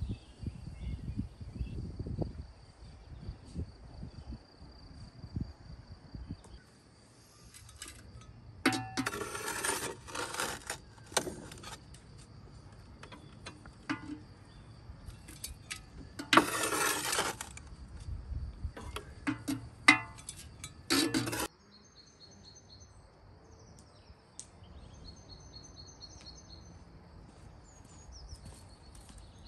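Clinks and clatter of kitchen utensils and dishes, with three short spells of louder rushing noise. A steady insect drone runs through the first part, and birds chirp near the end.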